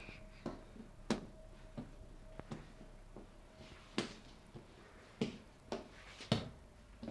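A crawling baby's hands slapping on a wooden floor: a string of irregular slaps, about one or two a second.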